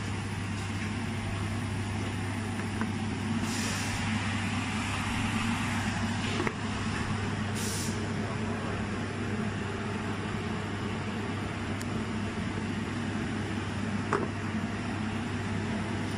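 Shrink-wrapping packaging machine (edge sealer and heat-shrink tunnel) running with a steady hum and whir. Two brief hisses come in the first half, and there are a couple of light clicks.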